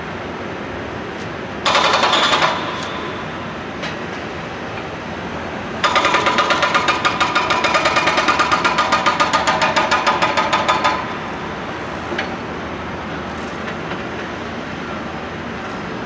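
Hydraulic breaker on a Caterpillar 420E backhoe loader hammering street pavement: a short burst about two seconds in, then a long run of rapid blows, about eight a second, lasting some five seconds. A steady engine drone runs underneath.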